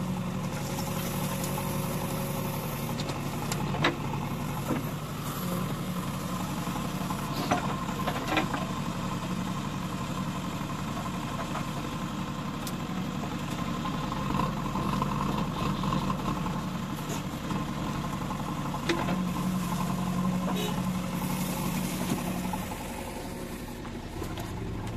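JCB 3DX backhoe loader's diesel engine running steadily while it digs and loads soil, its note swelling for a few seconds at a time. A few sharp metal knocks come from the bucket and arm.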